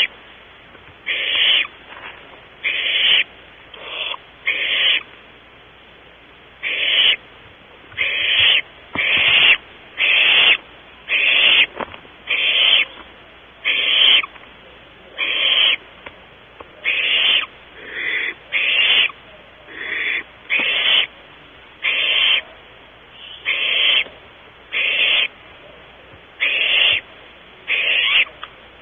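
Barn owl nestlings giving their rasping hiss, the snoring call that owlets use to beg for food. Short hisses about a second apart and somewhat irregular.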